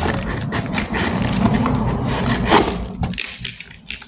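Cardboard box being handled and opened by hand: a dense run of scraping and rubbing, with a sharp crack about two and a half seconds in, then quieter scrapes near the end.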